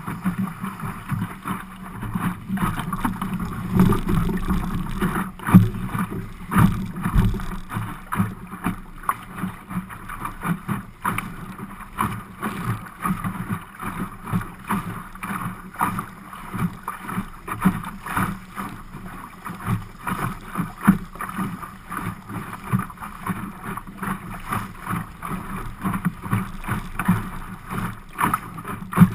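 Water splashing and slapping against the hull of an Optimist dinghy under sail, in quick irregular knocks over a steady rush, with wind buffeting the microphone.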